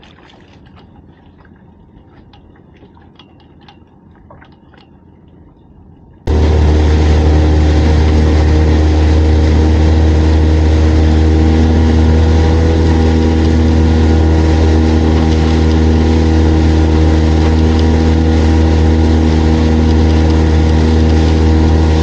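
Fishing boat's engine running steadily under way, a loud low hum with several steady tones and water rushing past the hull. It starts abruptly about six seconds in, after a few seconds of faint clicking.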